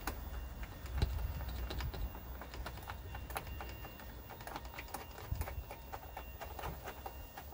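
Irregular small plastic clicks and taps as a Mini Cooper headlamp unit is worked into its mounting by hand, over a low rumble.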